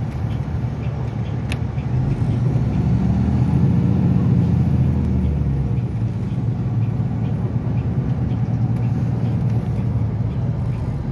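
Steady low engine and road rumble inside a moving motor vehicle, heavier for a few seconds near the start. A single sharp click about a second and a half in.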